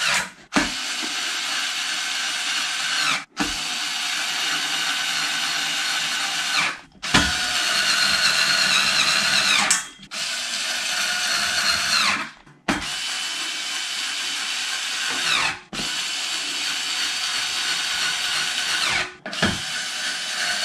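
Cordless screwdriver driving screws into a metal bed frame: about seven runs of a steady motor whine, each a few seconds long with short breaks between screws. The pitch drops near the end of some runs.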